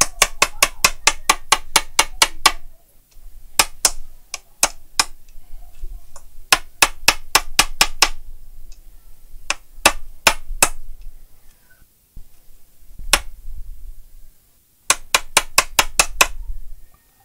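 Side cutters cracking and chipping the ceramic body of a 5-watt power resistor: runs of quick, sharp clicks, about six a second, broken by short pauses.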